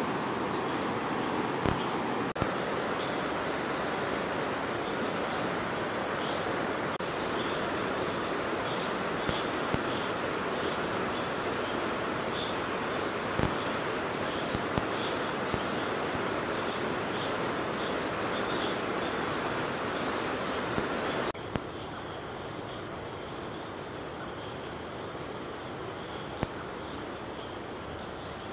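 Forest insects shrilling in a steady high chorus, with a softer pulsing trill beneath, over the even rush of a flowing river. About three quarters of the way through, the loudest shrill stops abruptly and the whole sound drops quieter.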